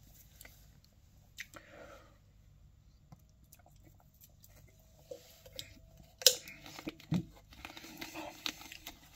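Quiet chewing and handling sounds of a man drinking from a plastic soft-drink bottle. A sharp click comes a little after six seconds in and is the loudest sound, followed by a thump and small noises as the screw cap is turned back on near the end.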